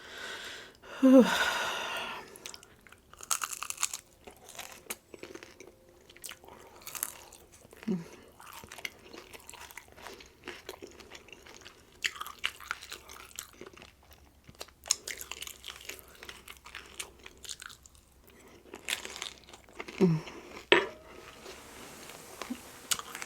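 Close-up crunching and chewing of crispy rolled tacos, bite after bite in an irregular run. The loudest crunch comes about a second in.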